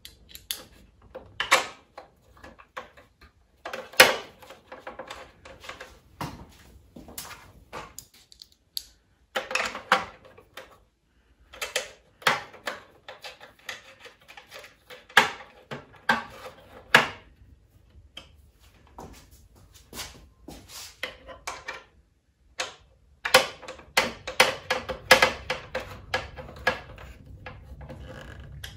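Small screws being put back into a plastic trim cover on a motorcycle's dash by hand: irregular light clicks, taps and rattles of metal screws and plastic, in short clusters with pauses between.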